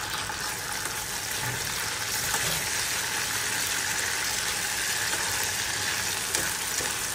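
Chopped onion and ginger-garlic paste sizzling in hot oil in a metal kadai, a steady frying hiss, while a metal spatula stirs through them with a few faint scrapes against the pan.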